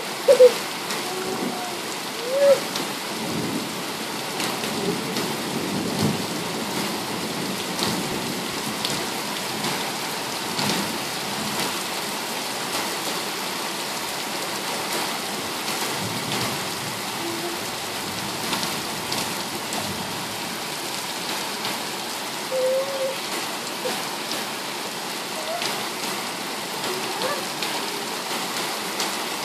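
Heavy rain pouring down, heard through a partly open window, with low rumbles of thunder swelling and fading several times.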